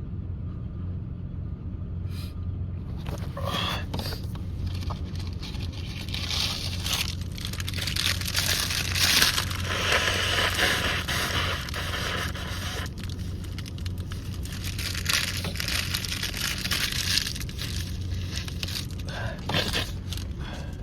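A person blowing a runny nose into a tissue, in long noisy blasts mostly between about 3 and 13 seconds in, then shorter ones, with the tissue rustling and crumpling.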